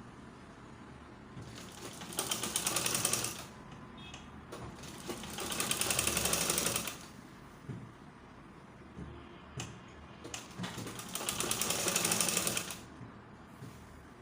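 Sewing machine stitching in an invisible zipper in three short runs of one to two seconds each, with a few small clicks in the pauses between runs.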